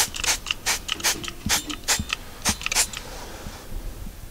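Hand trigger spray bottle squirting soapy water onto a propane tank's valve and regulator fitting to check for gas leaks: a quick series of about eight short squirts that stops about three seconds in.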